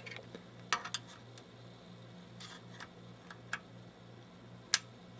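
Small sharp clicks and taps of hands working the plastic backlight wire connectors inside a disassembled LCD monitor, about seven in all and the loudest near the end, over a steady low hum.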